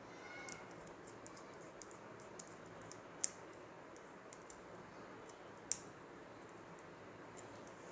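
Scattered small clicks and ticks of jumper wires and small electronic modules being handled while a wire is connected to a relay module, with two sharper clicks about three seconds in and near six seconds.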